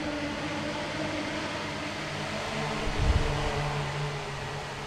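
Steady whirring drone of aircraft rotors with a hiss. About three seconds in a low rumble swells, then slowly fades.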